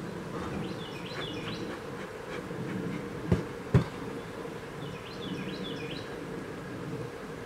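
Honeybees from an opened nuc buzzing in a steady hum around the open hive. Two sharp knocks come about half a second apart a little over three seconds in, and a bird sings two short descending phrases.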